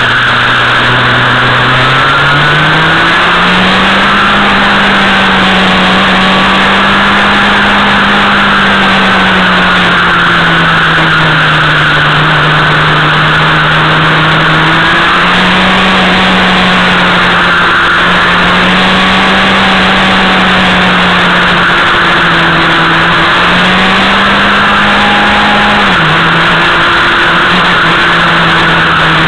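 Motorcycle engine heard from on board while riding, its note rising about two seconds in and then going up and down several times with throttle changes, under a steady loud rush of wind and road noise.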